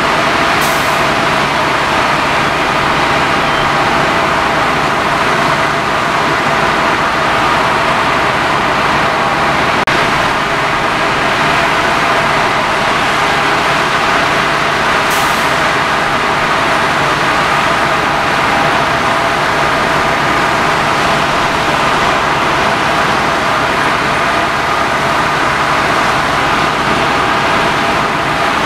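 Fire truck engine running steadily at the fire scene, a constant drone with a steady whine in it, as it drives the pump and aerial.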